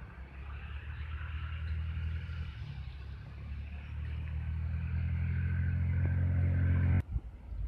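A motor vehicle's engine running with a low, steady drone that grows louder over several seconds, then cuts off abruptly near the end.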